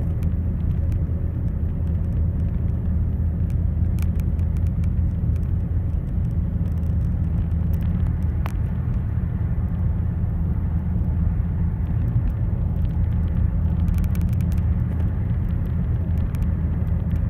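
Steady low rumble of a car driving at motorway speed, engine and tyre noise heard from inside the cabin, with a few faint ticks.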